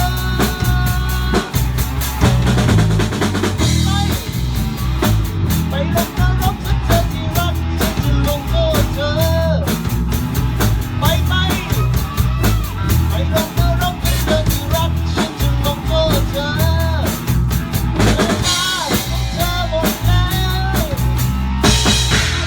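A band playing live with a full drum kit, bass drum and snare hits driving a steady beat under guitars and a lead melody line that bends and wavers in pitch.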